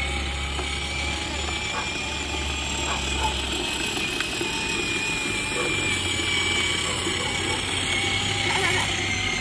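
Small electric motor and gearbox of a battery-powered ride-on toy motorcycle whirring with a steady whine as it drives along.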